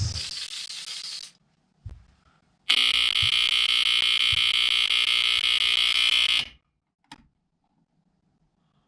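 BRK 2839ACI smoke alarm's buzzer going off when smoke reaches it: a loud, harsh, steady buzz lasting about four seconds that then cuts off suddenly. A short hiss is heard at the start, before the alarm sounds.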